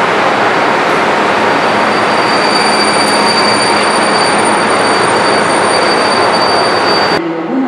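MÁV class 431 electric locomotive running with a loud, steady rushing noise and a thin high whine over it, cutting off abruptly near the end.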